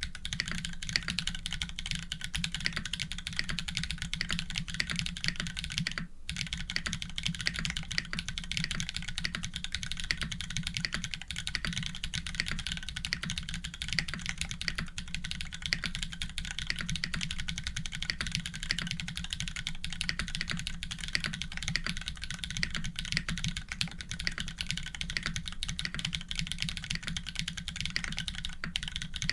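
Continuous fast typing on an Orion v2.5 custom mechanical keyboard with tactile Holy Panda switches, an FR4 plate and GMK Monochrome keycaps: a dense, steady stream of key clacks, with a brief break about six seconds in.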